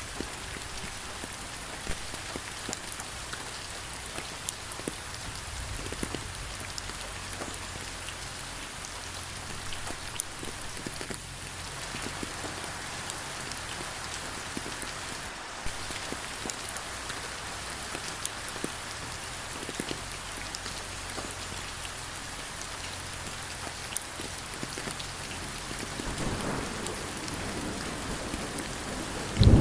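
Steady rain falling, an even hiss with scattered sharp drop taps. About four seconds before the end, a low rumble of thunder begins to swell.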